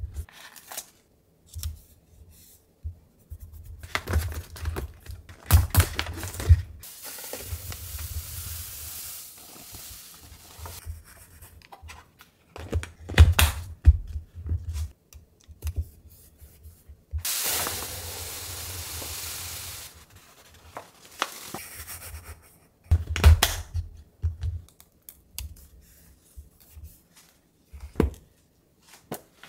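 Clear plastic storage containers being handled on a countertop: plastic lids clicking and snapping, and knocks as containers are set down. Twice there is a steady hiss lasting a few seconds, powdered cleaner being poured from its bag into a container.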